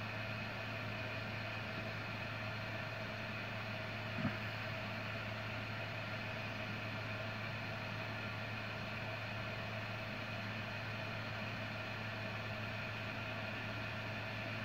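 Steady machine hum, with one short click about four seconds in.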